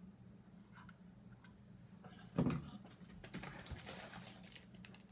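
Scanner box contents being handled and unpacked: a few light clicks, a single knock a little over two seconds in, then a run of rustling and small clicks.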